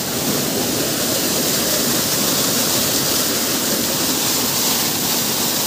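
Mountain waterfall crashing down onto a stone footpath and rushing across it: a loud, steady rush of water.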